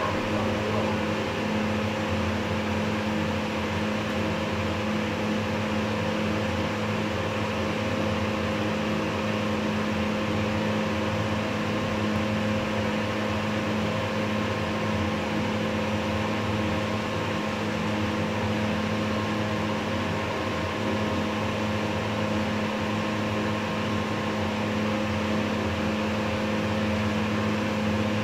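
Steady, unchanging hum with a few fixed tones inside the car of a 1979 Otis hydraulic lift travelling down between floors.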